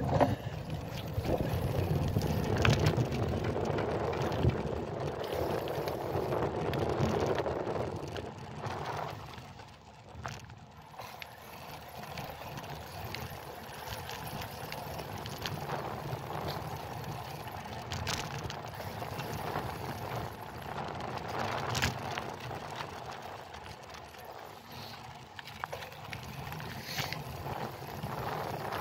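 Road bike being ridden on asphalt: a steady rush of riding noise, louder for the first eight seconds or so, with a few sharp clicks along the way.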